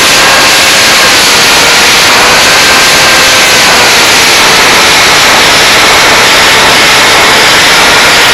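Electric motor and propeller of an FPV flying wing (Cobra 2814 2100 kV brushless motor turning an APC 6x5.5 prop) whining under heavy wind rush on the onboard microphone. The whine drops in pitch at the start and shifts a little up and down with throttle.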